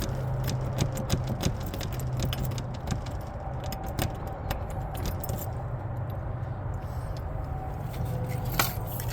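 Metal lock pick and tension wrench working in a Kwikset knob lock, making a run of small, irregular metallic ticks and scrapes, over a steady low hum.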